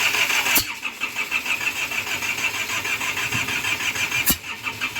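Isuzu Trooper's 4JX1 turbodiesel engine being cranked by its starter without catching, a steady rhythmic churn, part of troubleshooting its no-start fault. Two sharp clicks cut through it, about half a second in and near the end.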